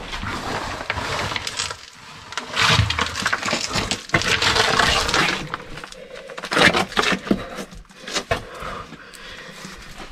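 Loose rubble and stones crunching and scraping underfoot in irregular bursts of crackles and clicks, as someone moves over a pile of broken rock and gravel.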